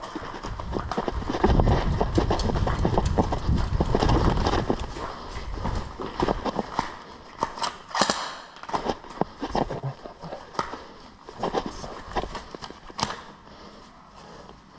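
Footsteps of a player moving quickly over the ground, with rustling and a heavy low rumble on the microphone in the first few seconds, then irregular steps and snaps that fade.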